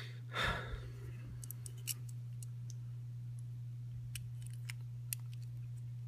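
A short breath about half a second in, then scattered light metallic clicks as a Master Lock 175 brass combination padlock and a thin wire bypass tool are handled, over a steady low hum.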